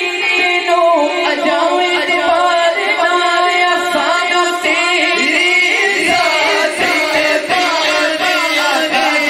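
Men singing a naat, an Urdu devotional song in praise of the Prophet, into microphones through a sound system, with long, ornamented held notes. A second voice joins the lead about halfway through.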